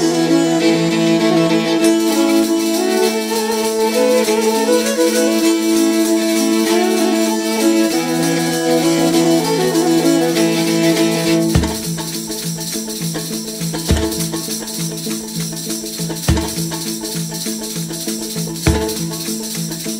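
Background music: a melody over steady held notes. About halfway through it thins out, and a deep drum hit falls every two seconds or so.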